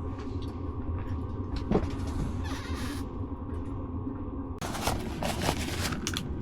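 A steady low rumble with a few scattered clicks and knocks. The sound changes abruptly about four and a half seconds in, to louder rustling and knocking.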